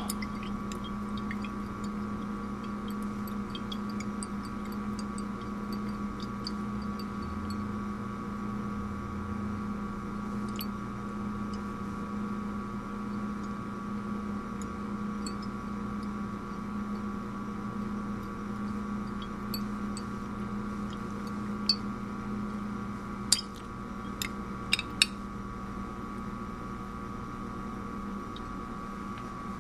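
A steady hum runs throughout with a fixed low tone and a higher tone. A few sharp glass clinks come near the end as the titration flask is swirled against the buret tip.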